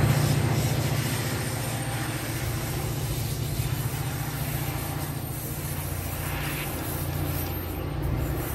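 Diesel locomotive engine working at the tail of a departing passenger train. Its low steady drone fades over the first couple of seconds as the train pulls away, then holds.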